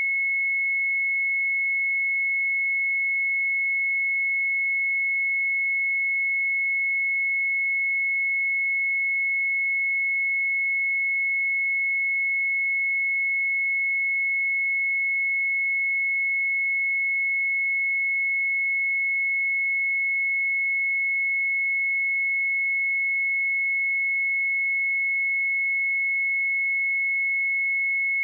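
A pure 2186 Hz sine-wave test tone, held steady at one pitch and level throughout.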